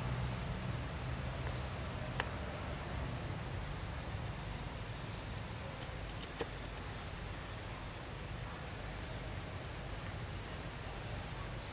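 Insects trilling in a steady chorus with evenly pulsing high notes, over a low hum that fades about three seconds in. Two short sharp clicks sound, about two and six seconds in.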